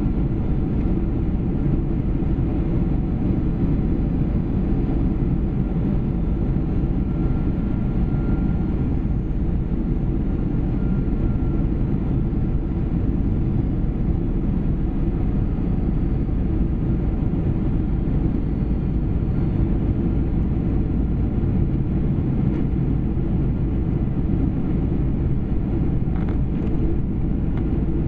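Steady jet airliner cabin noise heard from a window seat: a low, even rumble of the turbofan engines and the airflow over the fuselage during the descent to landing.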